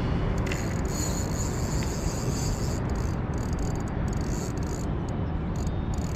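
Wind rumbling steadily on an action camera's microphone, with a faint high hiss rising for a couple of seconds about a second in.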